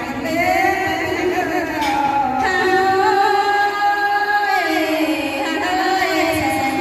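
A woman's voice singing a Thái folk song (hát Thái) into a microphone through a PA, in long held notes that waver and slide in pitch.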